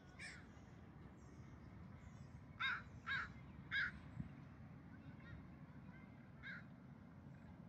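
A bird calling: a few short, harsh calls, three loud ones in quick succession in the middle, with a fainter call near the start and another near the end, over a steady low background hum.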